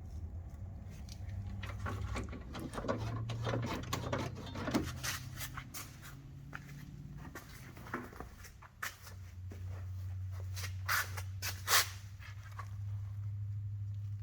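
Scattered clicks, taps and rustles of hand work over a steady low hum, with two sharper clicks near the end.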